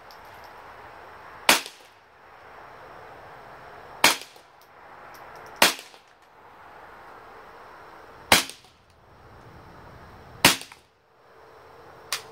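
GSG AK-47 .22 LR rifle firing low-velocity CCI Quiet-22 segmented hollow-point rounds at 710 feet per second, its action cycling them semi-automatically. There are five sharp shots at an uneven pace, one to three seconds apart, and a fainter click near the end.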